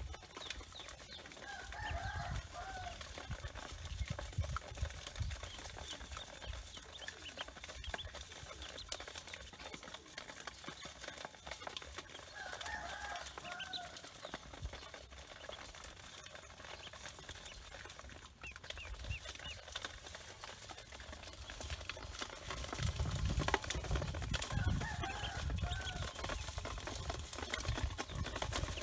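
Ducklings peeping continuously in a metal bowl, with many short, high rising chirps. A chicken calls three times in the background, about eleven seconds apart. A low rumble grows louder in the last quarter.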